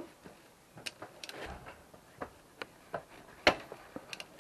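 Scattered clicks and light knocks of metal hand tools being handled and sorted through, with one louder knock about three and a half seconds in.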